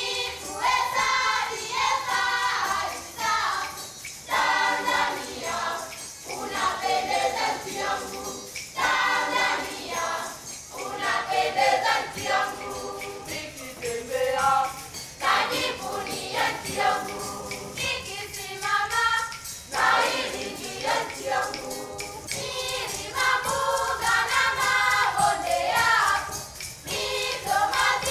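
A Tanzanian children's choir singing together in phrases, with a steady rhythmic beat under the voices.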